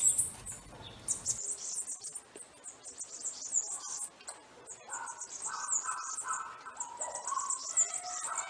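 Small birds chirping in rapid, high-pitched twitters, joined by lower whistled notes from about four seconds in.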